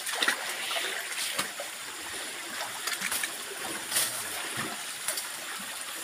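Shallow forest stream running and splashing over rocks, with scattered knocks and rustles close by.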